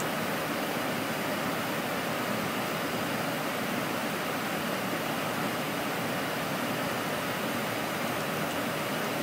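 Steady cockpit noise of an Airbus A310 in cruise flight: an even rushing hiss of airflow and air conditioning.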